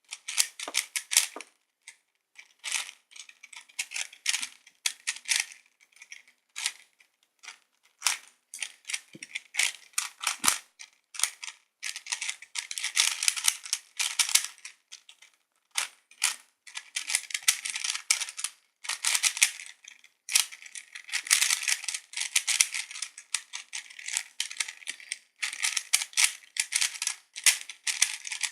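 Plastic Void Cube (a 3x3 puzzle cube with no centre core) being turned rapidly by hand during a speed-solve: fast runs of clicking and clacking from the layers, broken by short pauses.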